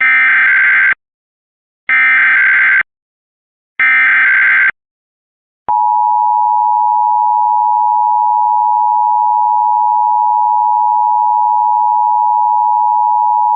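Emergency Alert System SAME header: three one-second bursts of warbling digital data tones about a second apart. After a click, the EAS two-tone attention signal sounds steadily for about eight seconds, announcing the test message.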